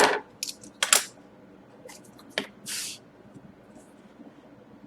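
A few sharp clicks and taps of objects being handled on a tabletop, with a short hiss partway through.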